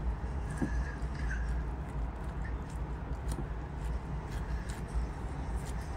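Wooden spoon stirring rice and toppings in a stainless steel bowl: soft scrapes and a few light taps, over a steady low rumble.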